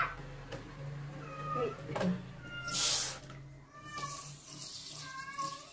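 Wet kitten mewing in several short, high cries while being bathed, with a brief burst of water spray from a handheld sink sprayer a little before the middle, the loudest sound.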